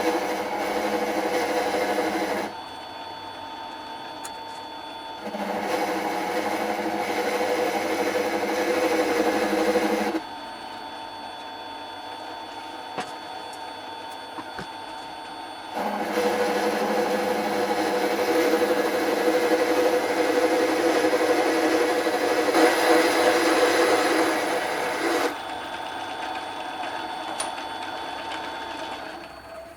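Mini lathe running steadily, its motor sound rising to louder, noisier stretches of several seconds and falling back to a quieter steady hum in between, three times over.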